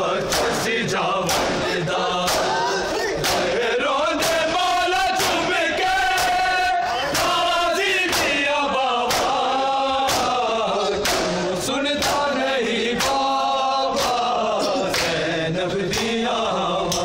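Crowd of men chanting a noha together, with sharp slaps of hands striking bare chests in unison about once a second: matam, ritual chest-beating in mourning.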